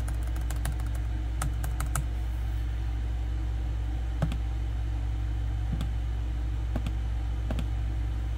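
Light clicks at a laptop as the test-signal level is stepped up: a quick run of clicks in the first two seconds, then single clicks about once a second. A steady low hum runs underneath.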